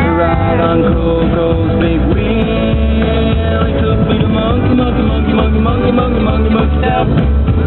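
Rock song playing, guitar over a steady low beat.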